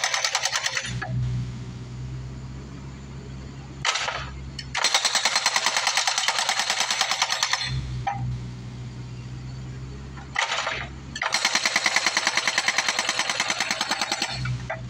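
Hydraulic rock hammer on a Bobcat 331 mini excavator breaking concrete in runs of rapid blows a few seconds long, stopping and starting several times. Between the runs the excavator's diesel engine keeps running steadily.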